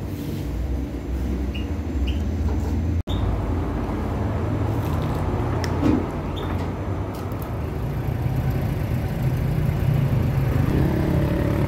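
Steady low rumble of road traffic and street ambience, with a few faint short high chirps in the first two seconds.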